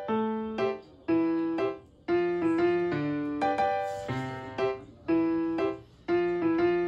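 Background music played on a piano-like keyboard: short groups of struck notes, each starting sharply and fading, about once a second in an even rhythm.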